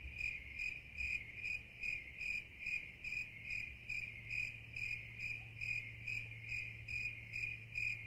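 Insect chirping in an even rhythm, about two to three chirps a second, over a low steady hum.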